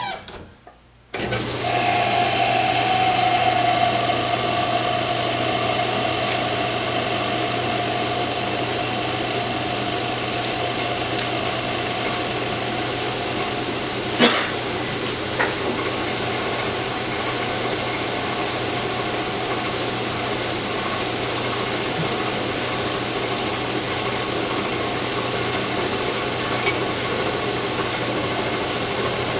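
Lortone lapidary slab saw switched on about a second in, its motor and diamond blade starting up and then running steadily, with a steady hum and whine. A single brief knock about 14 seconds in.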